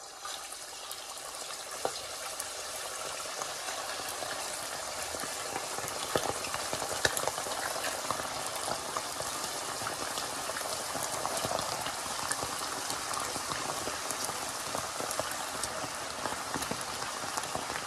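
Chunks of raw pork butt frying in hot lard: a steady, dense sizzle and crackle of bubbling fat.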